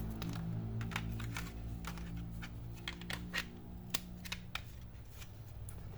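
Small screws being driven into a laptop hard drive's mounting with a small screwdriver, giving light, irregular clicks and ticks over a faint low hum.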